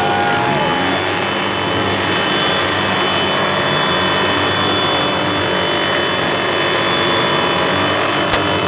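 Many small pit bike engines running together in a steady, dense drone, with a single sharp click near the end.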